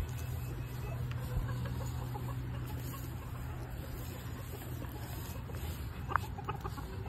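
Chickens clucking now and then over a steady low hum, with a sharper click or cluck about six seconds in.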